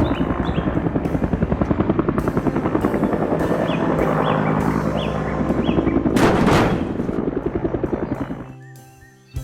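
Rapid mechanical chugging sound effect of a cartoon vehicle, about ten beats a second, over background music, with a whoosh a little after six seconds; it fades out near the end, leaving the music.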